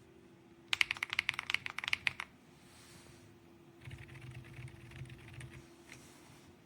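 Typing on the keys of an Ajazz AK820 Pro mechanical keyboard: a fast, loud flurry of keystrokes near the start, then a quieter run of keystrokes after a short pause.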